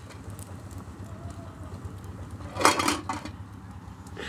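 Metal cookware clattering once, briefly, about two and a half seconds in, as a pot is handled on the stove.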